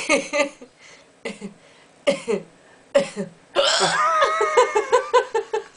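A woman hiccuping: a few sharp single hiccups in the first three seconds, then a rapid run of hiccups at about five a second lasting nearly two seconds.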